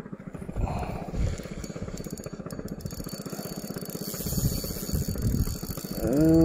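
A small engine running steadily with a fast, even pulse, then near the end a loud, drawn-out pitched call or tone that rises, holds for about a second and falls away.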